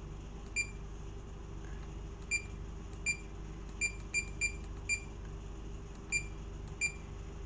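Key-press beeps from a Furuno GP-39 GPS navigator as its cursor key is pressed to scroll a waypoint list: about nine short, high, identical beeps at irregular intervals, some in quick succession.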